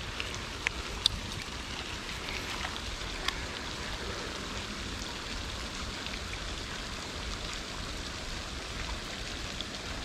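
Rain falling with a steady hiss, with a few faint sharp clicks in the first few seconds.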